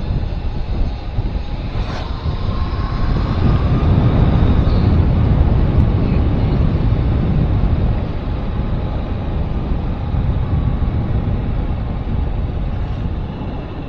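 Wind buffeting the microphone over the rumble of a moving vehicle on the road, swelling louder a few seconds in and then easing a little.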